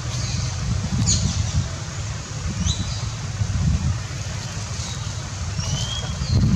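Uneven low rumble of wind buffeting the microphone, with a few short, upward-sweeping bird chirps scattered through.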